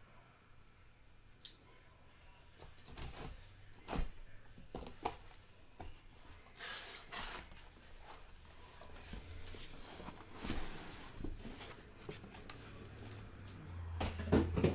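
A cardboard shipping case being opened and the shrink-wrapped boxes inside handled: scattered rustles, scrapes and light knocks, with a couple of heavier thumps near the end as boxes are set down in a stack.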